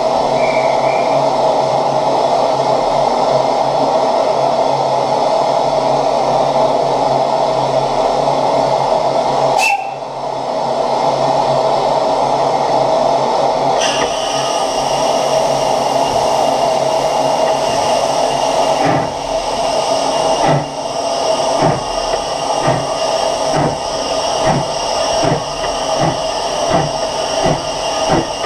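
SECR H Class 0-4-4 tank steam locomotive hissing steam while standing, with a brief break in the hiss a third of the way in. About two-thirds in, regular exhaust beats begin and come faster toward the end as the engine starts to move off.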